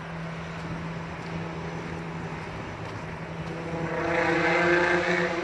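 Steady low engine hum, with a passing motor vehicle's engine noise building up and getting loudest near the end.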